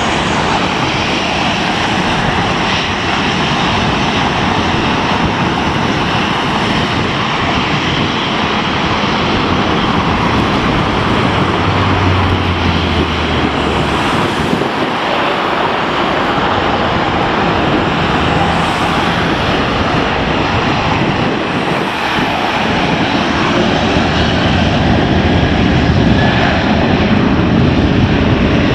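Jet engines of a WestJet Boeing 737 airliner running as it taxis, a steady loud rush that grows louder near the end.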